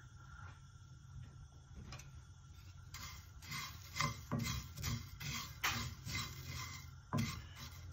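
Wooden spatula stirring and scraping dry peppercorns around a cast-iron skillet as they dry-roast without oil. Short scraping, rattling strokes come about two a second from about three seconds in.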